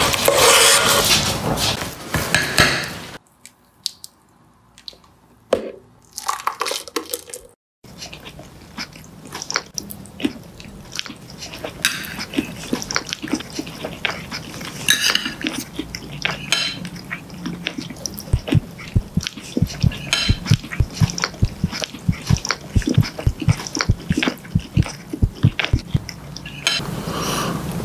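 Close-miked eating and cutlery sounds: a metal spoon scraping and stirring mashed potato in a stainless steel pot, loudest in the first few seconds. After a short quieter gap comes a long run of sharp clicks, knocks and scrapes of cutlery, with a fork going to the mouth.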